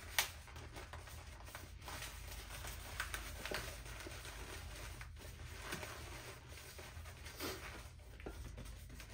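Inflated latex 260 modelling balloon squeaking and rubbing in the hands as it is twisted into pinch twists, with scattered short squeaks and clicks, a sharp one just after the start.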